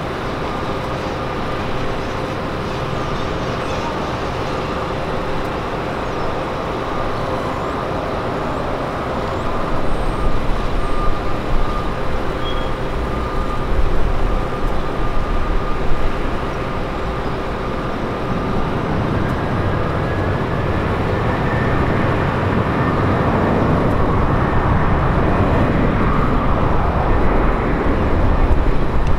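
Jet airliner engines running, a steady turbine whine over a deep rumble that swells from about ten seconds in and builds again through the second half, with a faint rising tone about two-thirds of the way through.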